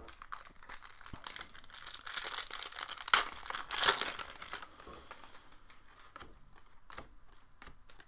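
Foil wrapper of a Panini Prizm basketball card pack being torn open and crinkled by hand, with the loudest tearing about three seconds in and again a second later. A few faint clicks follow.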